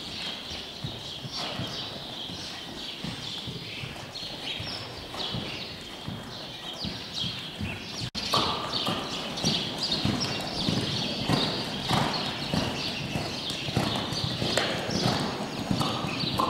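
A horse trotting on soft arena footing: a steady, regular run of hoofbeats, a little louder from about halfway through.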